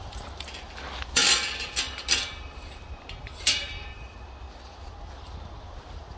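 Metal clinking: three short, bright clinks with a brief ring, about a second in, again around two seconds and once more around three and a half seconds, over a low steady rumble.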